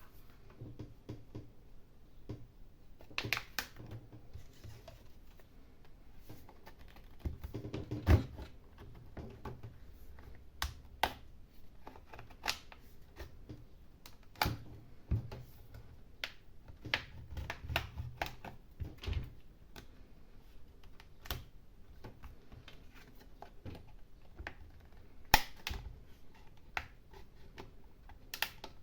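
Irregular small clicks and taps of hard plastic and small tools as a tablet is handled and worked on during disassembly, with two sharper knocks about 8 and 25 seconds in.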